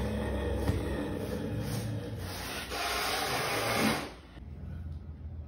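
A caracal hissing, a harsh, breathy noise held for about four seconds with a short break partway through, cutting off sharply near the end.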